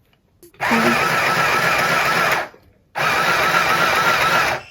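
Mini sewing machine stitching in two runs of nearly two seconds each, with a short stop between them as the foot pedal is let off.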